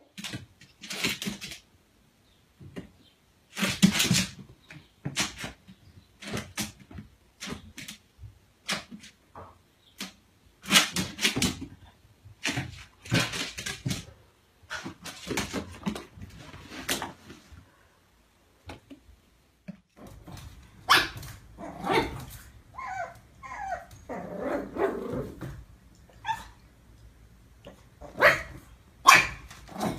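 Small dogs and a pug puppy barking at their own reflections in a mirror: short, sharp barks again and again, with a few higher whining cries a little after the middle.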